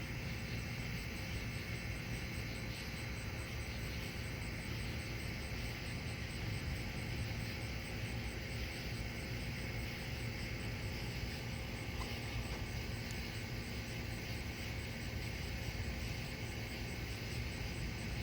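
Night outdoor ambience: a steady chorus of crickets and other insects over a continuous low rumble.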